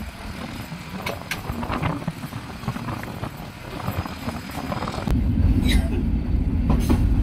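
Passenger train running along the line, heard from an open carriage door: a steady rumble of wheels and carriages. About five seconds in it jumps suddenly to a much louder, deeper rumble.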